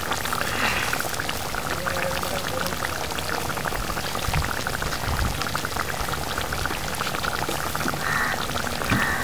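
Fish curry simmering in a metal kadai: a steady, dense crackle of small bubbles popping in the thick gravy.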